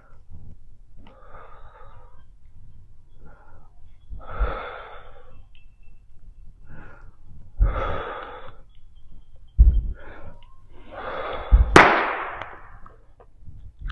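Heavy breathing during dumbbell shoulder presses: forceful exhales a few seconds apart, some with a low thump. Near the end there is a sharp knock as the dumbbells are set down on the wooden floor.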